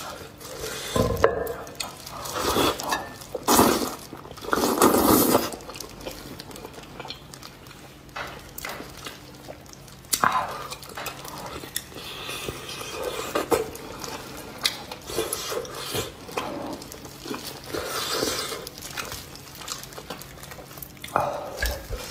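Close-miked eating sounds: biting, sucking and chewing braised cow hoof held in plastic-gloved hands, with wet tearing, gloves crinkling and light knocks on the tray. Loudest in the first five seconds or so, then quieter and more scattered.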